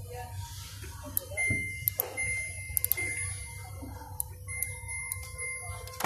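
Electronic beeper sounding a run of long, steady, high-pitched beeps in two spells, with a few light clicks in between.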